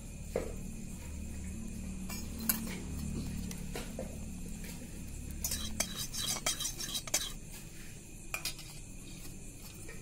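Scattered light clinks and taps of metal cookware (a steel bowl and an aluminium kadhai), with a quick run of clinks about six to seven seconds in, over a low steady hum that stops about six seconds in.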